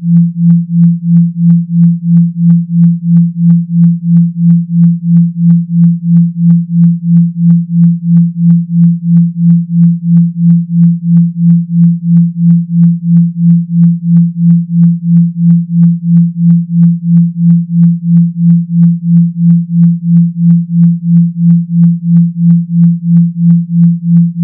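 Electronically generated low hum, a pure tone at about 170 Hz, swelling and fading about twice a second in a steady buzzing pulse like a vibrator motor.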